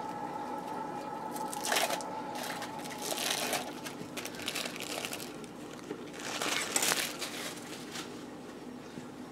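Plastic cheese-slice packaging crinkling in three short bursts as slices of vegan cheese are peeled from it.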